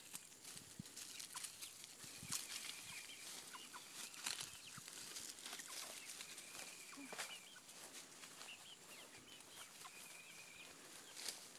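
Young chickens clucking faintly, with short high peeps scattered through, over light clicks and rustles.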